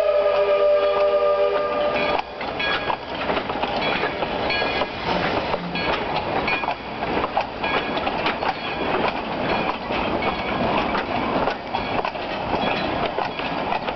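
A steam locomotive's whistle sounds a long chord with several notes, which cuts off about two seconds in. Then narrow-gauge railroad cars roll slowly past, their wheels clicking and rattling on the track with short metallic squeals.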